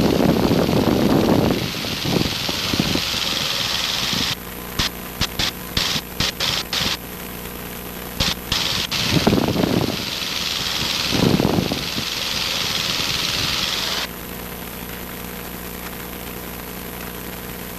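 Cessna 150's four-cylinder piston engine running with a steady drone, heard from inside the cockpit. Until about 14 s in it is overlaid by loud irregular bursts of hiss and rumble, some broken into quick choppy pieces, and after that only the engine drone remains.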